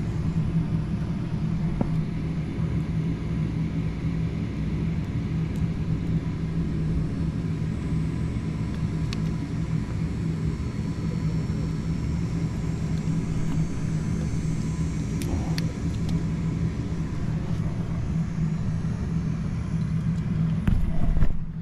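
Steady low mechanical hum and rumble from running machinery, with a few faint clicks from hands working wires and pliers.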